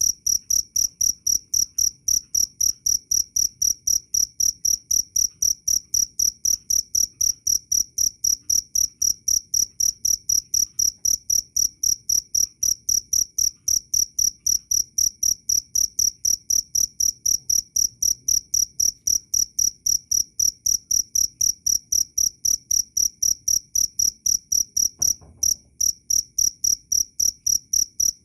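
Cricket chirping loud and clear: an even, unbroken run of short high chirps, about three or four a second, with one brief break near the end.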